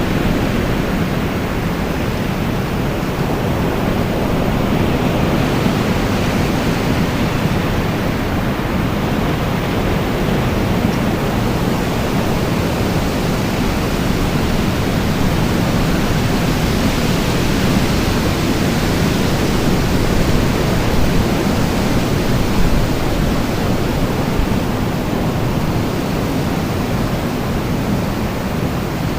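Wind blowing steadily, a continuous rushing noise that is heaviest in the low range and swells and eases slowly.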